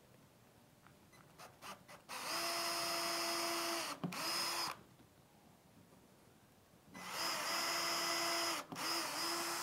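Electric drill with a 2 mm bit boring pilot holes into a wooden strip: two runs of about two and a half seconds each. In each, the motor spins up to a steady whine, dips briefly and recovers, then stops.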